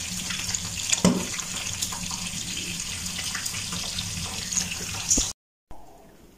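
Steady rain, with a sound of running and dripping water. It cuts off suddenly about five seconds in, leaving faint room tone.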